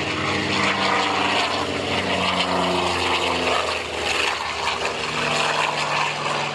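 Propeller aircraft making a low pass: a steady engine and propeller drone whose pitch drops around the middle as it goes by.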